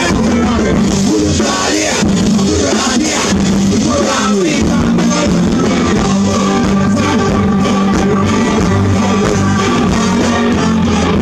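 Live rock band playing loudly, with electric guitars, drums and keyboard, and a man singing into a microphone over it.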